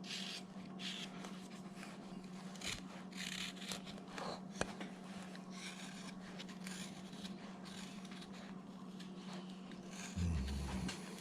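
Carving knife shaving wood in short, light scraping strokes while rounding a carved figure's arms. A steady low hum runs underneath, with a sharp click about halfway and a soft low bump near the end.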